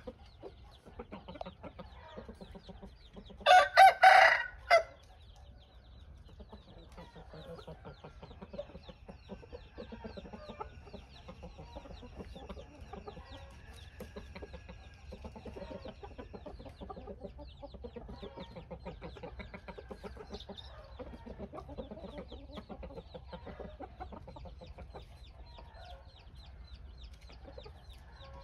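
Young gamecock roosters: one crows loudly about four seconds in, a single crow broken into several pulses, while soft clucking and scratching go on the rest of the time.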